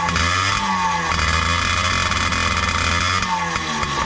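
Yamaha PW50's 49 cc two-stroke single-cylinder engine running as the throttle is blipped, the revs rising and falling twice. It runs well on its first start after a rebuild.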